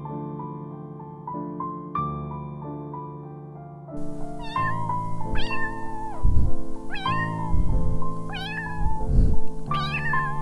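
Soft piano music, then from about four seconds in an animal gives five loud, cat-like meowing calls, each falling in pitch, about one every second and a half. Low rumbles come with the calls.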